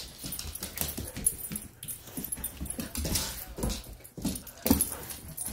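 A moyen poodle darting after a laser dot, its claws clicking and scrabbling on a laminate floor in quick, irregular taps.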